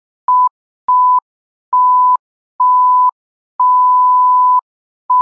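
Electronic countdown beeps: a steady single-pitch beep sounded six times, each one longer than the one before, the longest lasting about a second, then a short final beep cut off by a sharp click.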